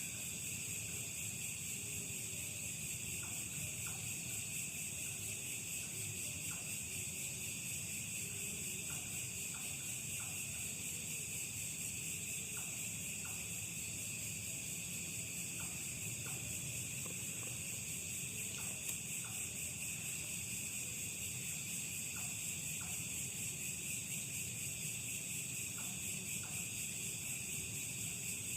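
Crickets and other insects in a steady, high-pitched nighttime chorus, with scattered short clicks or chirps underneath.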